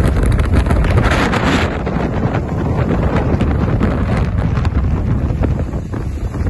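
Storm wind buffeting the microphone with a heavy, steady rumble, over the wash of rough, wind-whipped waves breaking on the shore.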